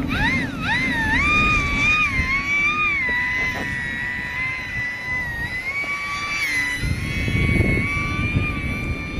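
OMP Hobby S720 micro RC airplane's electric motor and propeller whining, the pitch swooping up and down in the first few seconds and then holding fairly steady. Strong wind buffets the microphone underneath, gusting louder near the end.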